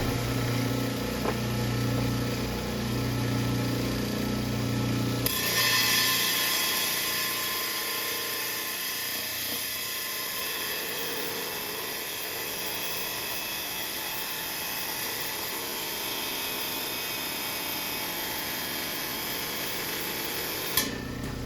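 Hi-tech Diamond 10-inch lapidary slab saw running, its motor humming steadily. About five seconds in, the sound changes suddenly to a steady high-pitched grinding as the diamond blade cuts through a small agate.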